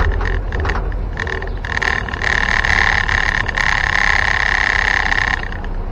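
1961 Land Rover Series II 109-inch station wagon on the move, its engine running with a low rumble inside the cabin. From about two seconds in to about five and a half seconds, a loud buzzing rattle rises over the engine, then drops away.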